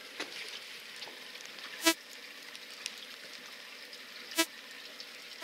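Steady hiss of wind and sea on a small drifting fishing boat, with two short, sharp clinks about two and a half seconds apart.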